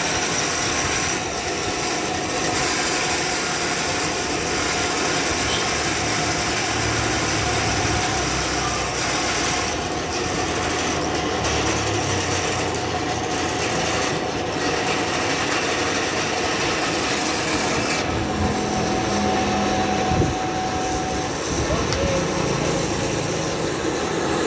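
Power saw ripping lengthwise through wood: a steady, continuous rasping cut with no break.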